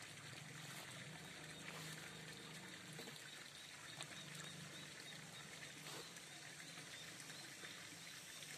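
Near silence: faint outdoor background at a pond, a steady low hum and hiss with a few soft clicks.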